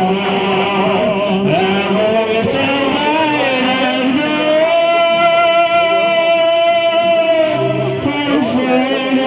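A man and a woman singing a Vietnamese song as a duet, accompanied by an electronic keyboard, with a long held note in the middle.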